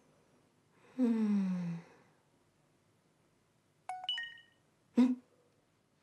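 A woman lets out a long moan that falls in pitch. About four seconds in a phone's message alert chimes in a few short electronic tones, and she answers it with a short 'hm'.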